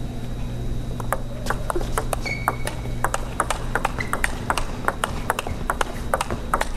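Table tennis rally: the ball clicking back and forth off the players' paddles and the table, several sharp ticks a second, starting about a second in. A few short high squeaks sound between the hits.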